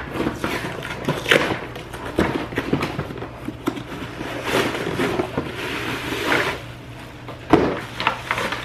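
Cardboard shipping box being opened by hand: packing tape ripped off and cardboard flaps torn and scraped in a run of crackles and rasps, with plastic wrapping rustling near the end as a wrapped part is pulled out.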